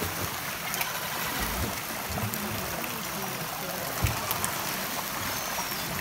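Steady rush of water pouring from an inlet pipe into a seal pool, with a single sharp knock about four seconds in.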